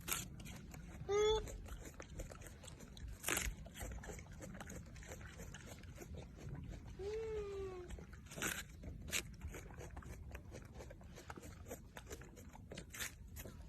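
A baby monkey giving short, high, arching cries twice: about a second in and again about seven seconds in. Scattered clicks and knocks are heard in between.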